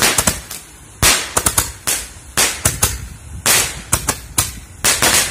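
Handheld Roman candle fireworks firing: sharp bangs in rapid, irregular succession, about three a second, stopping near the end.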